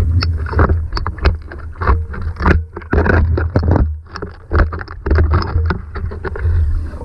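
Rapid, irregular knocks and scrapes of a magnet on a pole being worked against and through a street drain grate, over a steady low rumble.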